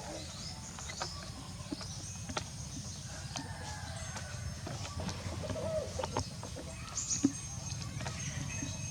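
Birds calling, chicken-like: short high falling chirps in quick runs, with a lower call about five and a half seconds in, over a steady low background rumble and scattered clicks.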